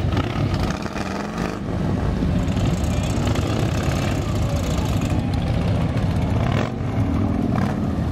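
A procession of cruiser motorcycles riding past, several engines running together with a steady, low engine sound.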